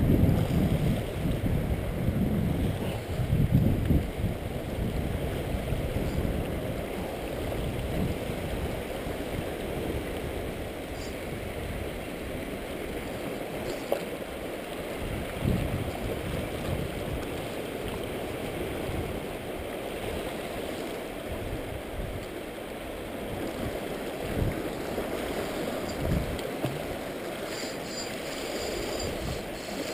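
Sea water washing against shoreline rocks, with wind buffeting the microphone, gustiest in the first few seconds.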